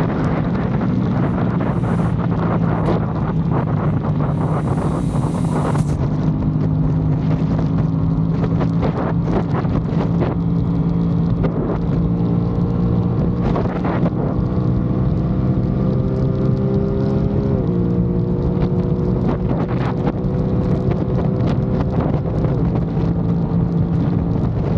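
Aprilia Tuono 660 Factory's parallel-twin engine running steadily while riding, under heavy wind noise on the microphone. Its pitch rises slowly, with a step in pitch about two-thirds of the way through.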